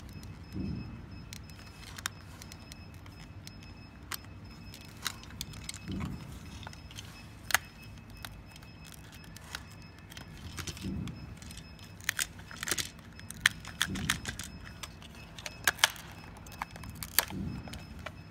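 Plastic housing and small internal parts of an infusion pump handled and fitted together by hand: scattered sharp clicks and taps, with a few dull knocks every few seconds.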